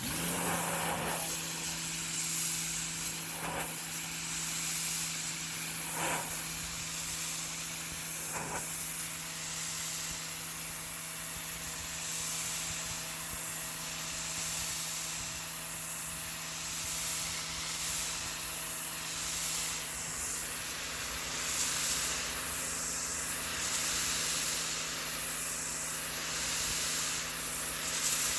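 Sun Joe SPX 2000 electric pressure washer running, its motor and pump humming steadily under the loud hiss of the water jet as it sprays a deck. The hiss swells and fades a little as the jet moves.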